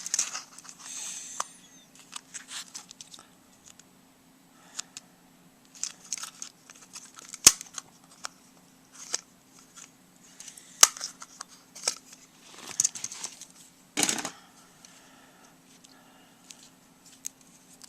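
Parts of a flip phone being handled and pried apart: scattered small plastic clicks and brief scrapes, with two sharp clicks a few seconds apart in the middle and a longer scrape later on.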